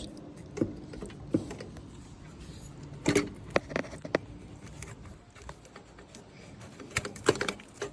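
Scattered metal clinks and knocks of ATV exhaust parts and hardware being worked into place by hand, with a cluster about three seconds in and another near the end.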